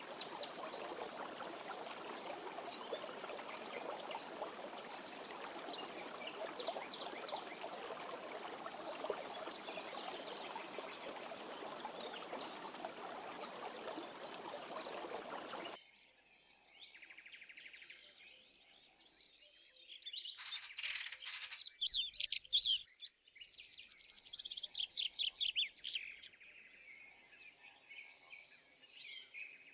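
Rushing water with faint bird chirps. After a sudden cut, birds chirp and twitter in quick trills, and about four seconds later a steady high-pitched insect drone joins them.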